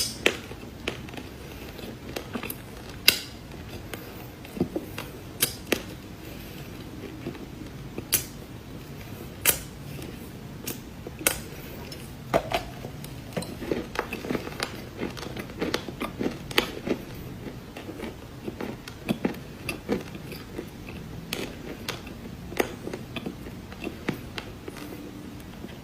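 Crunchy cookies being bitten and chewed close to the microphone: irregular sharp crunches and cracks, coming more thickly in the second half.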